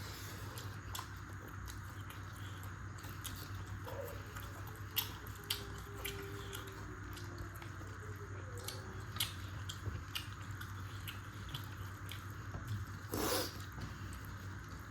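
Close-up eating sounds of chicken curry and rice being chewed and bitten, with scattered small mouth clicks and smacks over a steady background hum. A brief louder noise about 13 seconds in.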